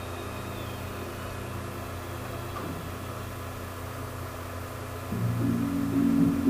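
A car engine running with a steady hum, growing louder about five seconds in.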